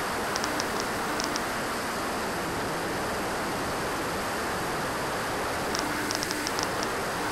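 Steady rushing noise of an RC jet in flight: the Swiwin SW60 model turbine and the airflow around the airframe, even and unchanging. Clusters of short high ticks come about half a second in and again around six seconds in.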